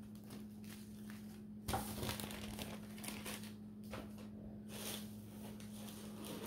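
Small plastic zip-lock bags of dried herbs crinkling and rustling as they are handled and set down on a table. The rustles come in uneven spurts, loudest about two seconds in, over a steady low hum.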